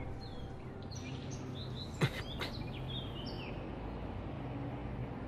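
Outdoor background noise with a steady low hum and birds chirping faintly. A single sharp thump comes about two seconds in.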